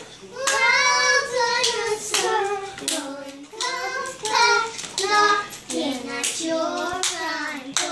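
Two young girls singing a children's song together in high voices, with a few hand claps.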